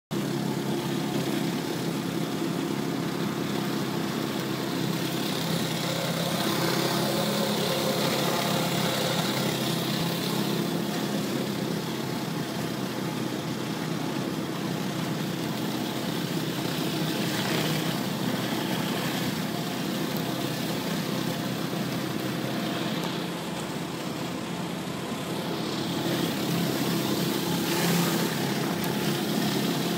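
Gas-engine pressure washer running steadily, with the hiss of its high-pressure water spray on concrete.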